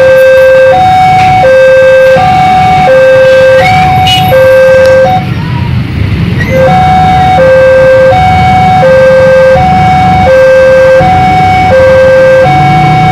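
Two-tone hi-lo siren alternating steadily between a higher and a lower pitch, each held about 0.7 s, over a low rumble. The tones drop out for about a second and a half near the middle, then resume.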